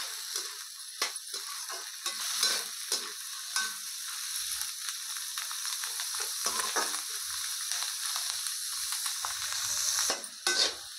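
Soaked chickpeas with onion and green chilli frying in mustard oil in a steel kadhai: a steady sizzle, with repeated scrapes and clinks as a perforated steel ladle stirs them against the pan.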